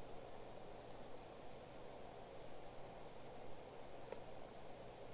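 Computer mouse clicking: a few light, sharp clicks, mostly in quick pairs, about a second in, near the middle and about four seconds in, over faint steady background noise.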